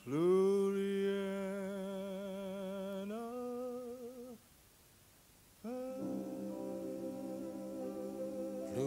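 Male vocal quartet holding wordless close-harmony chords with a slight vibrato. The first chord shifts up a step about three seconds in and breaks off, and after a pause of about a second a new held chord begins.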